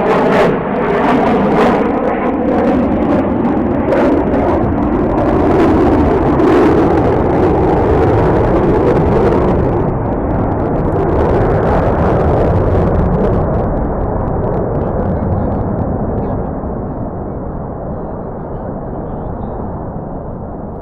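Jet noise from F-22 Raptor fighters flying over, a loud rushing roar with some crackle. About halfway through it turns duller and fades slowly as the jets move away.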